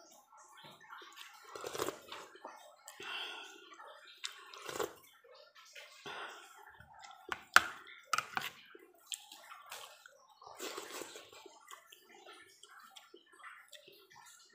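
Close-up eating sounds: wet chewing and mouth noises with a spoon scraping and clicking against a plate of rice, in irregular short bursts. One sharp click of the spoon on the plate, about halfway through, is the loudest sound.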